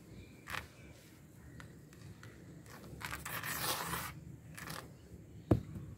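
A hand raking and crumbling dry, grainy red dirt in a bowl: gritty scraping and crunching in short strokes, with a longer scrape a little past halfway and a single sharp thump near the end.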